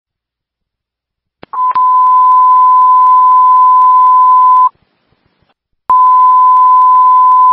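Police radio alert tone sent ahead of an urgent dispatch: a steady high beep lasting about three seconds, a pause of about a second, then a second beep of about two seconds. Each beep opens with a click of the radio keying up.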